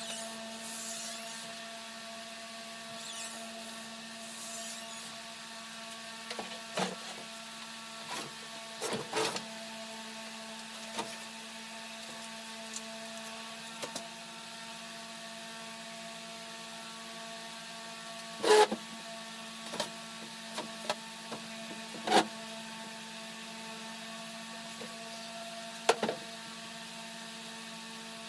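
A steady electrical hum of several fixed tones runs throughout, broken by scattered knocks and clunks of things being handled and set down, the loudest about two-thirds of the way in and again near the end.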